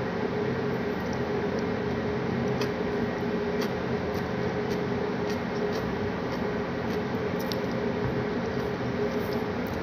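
Steady mechanical hum and hiss with a constant mid-pitched tone, and faint soft clicks scattered through it.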